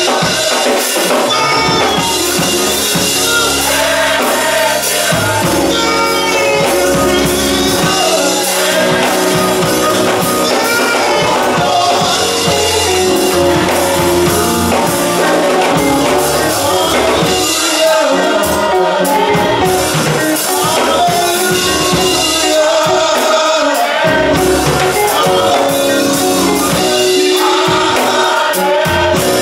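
Gospel choir singing with a band accompanying, loud and continuous, over a moving bass line.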